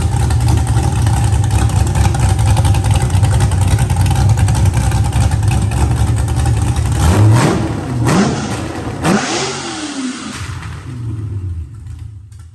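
LS V8 engine with a newly installed big aftermarket cam running steadily, then revved up and back down about three times in quick succession about seven seconds in, before settling and fading near the end.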